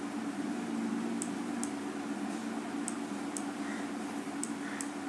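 Computer mouse button clicking: three pairs of short, sharp clicks, the two in each pair about half a second apart, as a wrap point is dragged on a picture. Under them runs a steady low hum.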